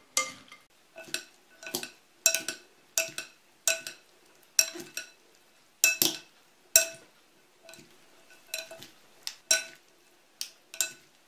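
Plastic salad servers tossing shredded cabbage and carrot in a glass bowl, knocking against the glass in an irregular run of about two knocks a second, the bowl ringing briefly after each knock.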